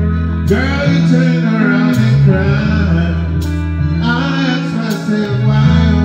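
Live band music: an electric guitar playing a wavering melody over a steady bass line and drums, with a sharp drum or cymbal hit about every second and a half.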